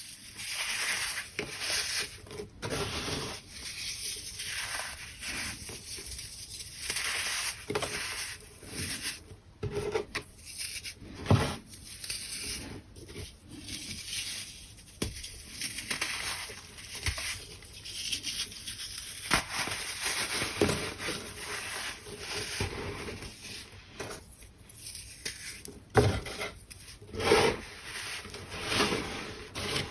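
Crunchy baking soda chunks being crushed, with irregular crunching and scraping and a few sharper cracks, one about eleven seconds in and another near the end.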